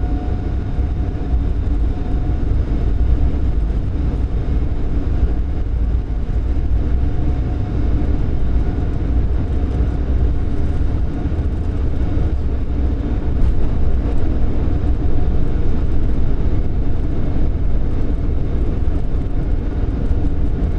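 Boeing 747-8F on its takeoff roll at takeoff thrust, heard from the cockpit: a loud, steady, deep rumble of the four engines and the wheels on the runway as the freighter accelerates towards rotation speed.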